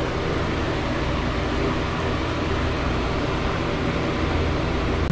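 Steady rushing air noise with a low hum from a running fan.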